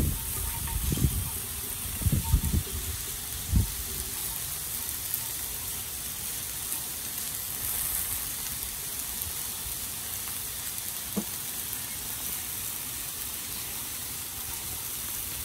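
Pork chops and frozen corn sizzling steadily on a hot flat-top griddle, an even high-pitched hiss. A few brief low thumps in the first few seconds.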